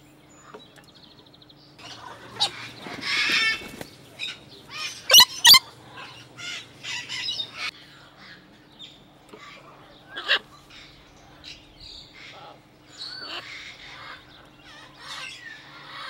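Blue-and-gold macaw calling: a series of short squawks and chatter, with a longer noisy call about three seconds in and two loud sharp calls close together about five seconds in. A faint steady hum runs underneath.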